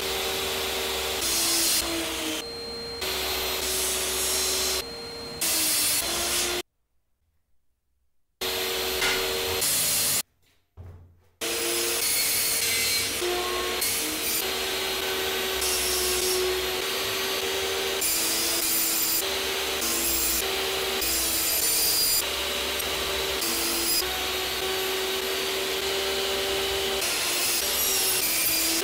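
Table saw running and cutting plywood drawer parts, including grooves for the drawer bottoms, with a steady motor whine whose pitch dips and recovers as the blade takes each cut. A dust extractor runs with it. The sound cuts off twice briefly.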